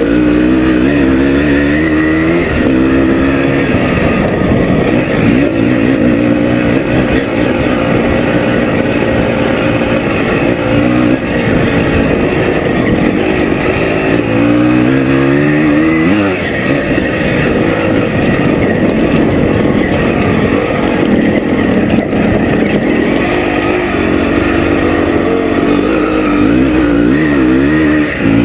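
Can-Am 370 two-stroke single-cylinder enduro motorcycle being ridden along a dirt track, heard from on the bike. The engine revs up and down through the gears, with a clear rising rev about halfway through and more rising and falling near the end.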